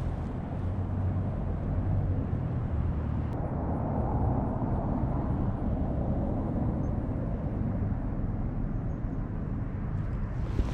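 Steady low rumble of heavy wind buffeting the microphone outdoors, with no distinct events.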